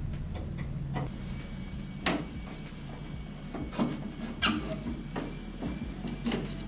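Scattered clicks and knocks of parts and tools being handled, with a short squeak about four and a half seconds in, over a low hum.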